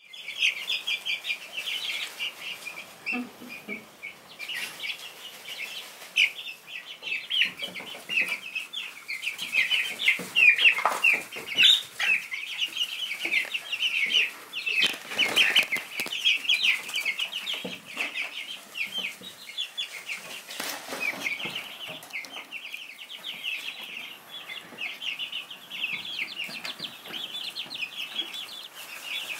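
A brood of young chicks peeping continuously, many short high chirps overlapping without a break, with occasional rustles and scuffles among them.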